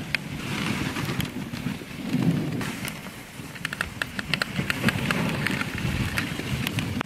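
Dog sled running over a snow trail: the runners rush and scrape on the snow with a low rumble. A quick run of metallic clinks about halfway through, from the gangline's chain and snap rattling.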